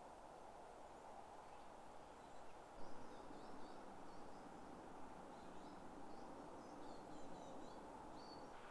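Faint outdoor ambience: a steady low hiss with faint birdsong chirping through the second half, and a couple of brief soft knocks about three seconds in.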